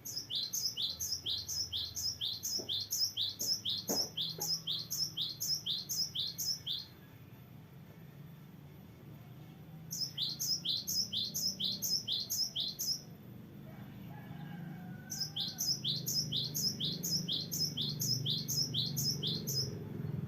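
Cinereous tit (gelatik batu) singing its long rolling song: three drawn-out runs of rapid, high, repeated sweeping notes at about four a second, with short pauses between them.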